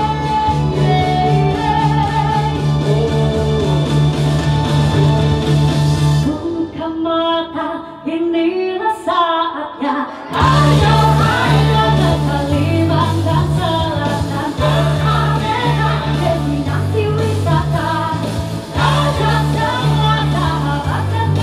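Live pop band with a female lead singer, electric guitar, keyboard and a small plucked lute. About six seconds in the bass and beat drop out for about four seconds, leaving the voice and lighter accompaniment, then the full band comes back in.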